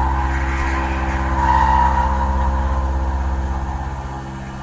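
Bridgeport VMC 1000/20 CNC mill cutting into a metal plate: a steady low spindle hum under a higher cutting whine that swells about a second and a half in. The sound eases off near the end.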